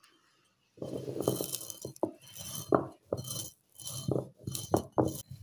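Stone roller of an ammi grinding stone worked back and forth over roasted fenugreek and mustard seeds on the stone slab. The seeds crack and crunch in repeated gritty strokes, about one a second, starting about a second in.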